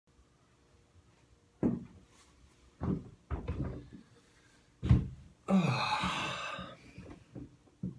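Several dull thumps and knocks as a person moves about a small room and sits down close to the microphone, then a noisier sound lasting about a second, the loudest stretch.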